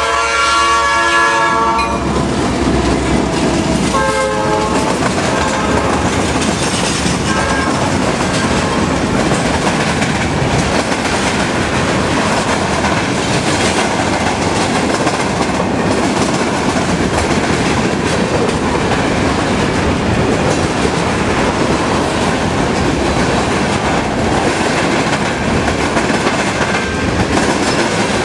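Diesel freight locomotive air horn sounding for a grade crossing: a blast that ends about 2 seconds in, and a short one about 4 seconds in. Then the steady rumble of a long string of tank cars rolling past close by, steel wheels clattering over the rails.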